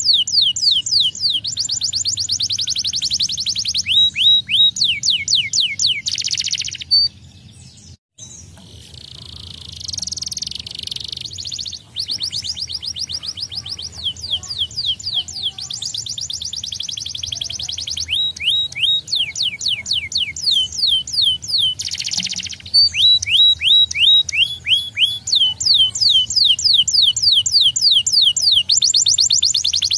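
Domestic canary singing fast trills: runs of rapid falling whistled notes, many per second. There is a short break about seven seconds in, followed by a harsher rolling phrase before the quick trills resume.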